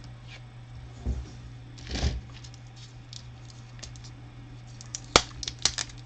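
Loose plastic Lego pieces and their plastic cup being handled: a couple of soft knocks, then a quick run of sharp clicks and rattles near the end.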